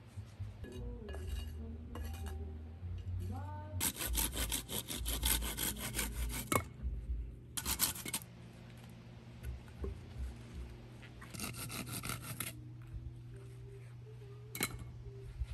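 Small hand pruning saw cutting through a thin branch in quick back-and-forth strokes. It comes in three spells: a long one starting about four seconds in, a short one near eight seconds, and another near twelve seconds.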